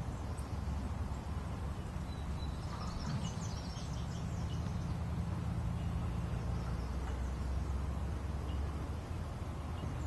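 A woodpecker hammering on a metal garbage can lid, a quick burst of rapid taps about three seconds in, over a steady low rumble.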